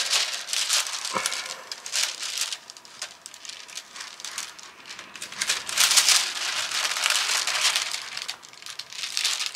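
Thin plastic protective film crinkling and rustling as it is pressed and smoothed by hand back over the sticky canvas of a diamond painting, in uneven bursts that are loudest near the start and again about six seconds in.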